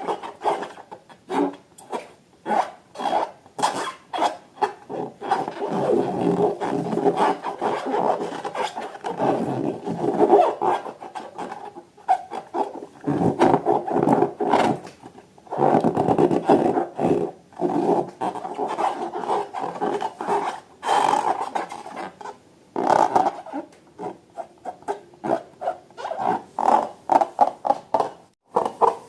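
Slime and rubber balloons being handled and worked by hand: an uneven run of squishing, rubbing and crackling noises, with a couple of brief pauses.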